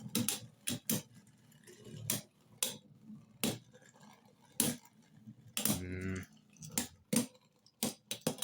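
Scattered sharp plastic clicks and clacks of 3D-printed Beyblade tops and parts being handled and reset, with a brief hummed voice sound about six seconds in.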